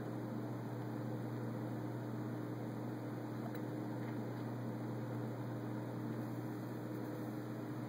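Steady low hum with a constant hiss over it, from aquarium equipment running, such as a filter or pump motor and its water flow.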